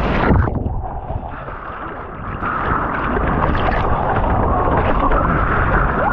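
Ocean surf rushing, with wind buffeting the microphone; the rush drops off about half a second in and swells back up about two and a half seconds in.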